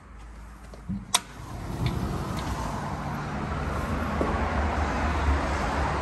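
A sharp click about a second in as the sliding glass balcony door opens, then steady road traffic noise from a multi-lane highway swells up and holds.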